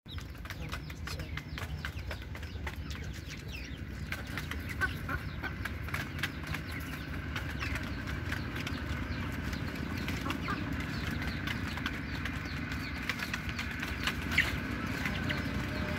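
Young chickens pecking feed from shallow metal pans: many quick taps of beaks on the pans, with scattered short high peeps and chirps from the birds, over a steady low rumble.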